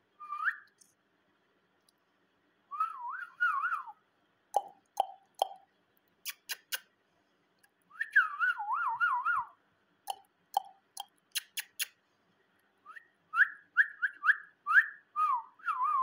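Rose-ringed parakeet whistling in short bursts of quick, wavering notes that go up and down, with sharp clicks between the bursts.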